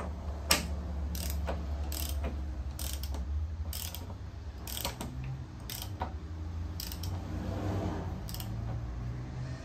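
Hand ratchet clicking in repeated strokes, one or two clicks about every second, as it tightens a motorcycle's steering stem nut. A steady low hum runs underneath.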